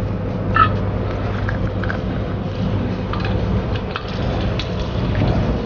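Garlic cloves frying in a little oil in a brass kadai on a gas burner: a steady hiss with a few small pops and crackles.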